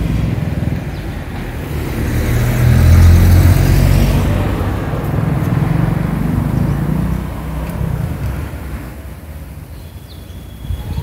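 A road vehicle passing: engine rumble and tyre hiss swell to a peak about three seconds in, then fade away over the next several seconds.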